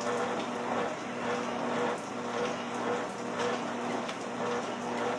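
Used treadmill running: a steady motor hum with an even pulse, under the belt's noise and the regular footfalls of someone walking on it.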